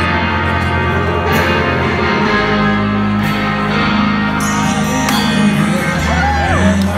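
A live rock band plays through a concert PA, recorded from within the crowd. Held low bass notes change every couple of seconds under electric guitar and cymbal crashes, with a few sliding notes near the end.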